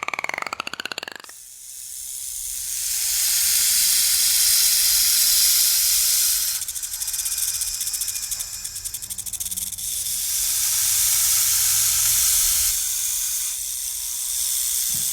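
An animal hissing loudly in a run of long breaths, each lasting a few seconds, following a short pitched call that stops about a second in.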